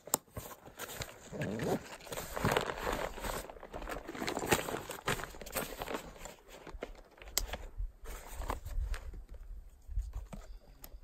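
Backpack fabric rustling and crinkling as the pack is closed and its straps are pulled tight, with scattered sharp clicks from the strap buckles.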